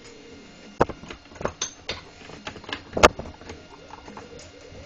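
Irregular clicks and knocks of an opened soldering station's case and circuit board being handled and turned over, with a sharper knock about three seconds in.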